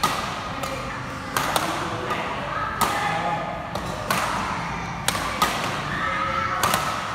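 Badminton rackets striking a shuttlecock during a doubles rally: sharp hits about every second or so, some in quick pairs, with voices talking in the background.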